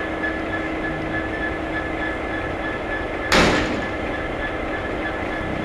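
Class 66 diesel locomotive's two-stroke V12 engine idling steadily, and its cab door slammed shut once a little over three seconds in.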